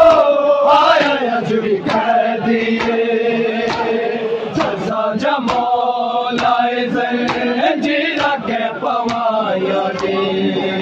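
Crowd of men chanting a noha together in long held lines, with bare hands slapping chests in matam in a steady beat of about two strikes a second.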